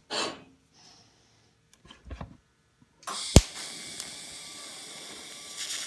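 TIG welding arc struck about three seconds in: a sharp crack at the start, then a steady hiss of the arc as it welds.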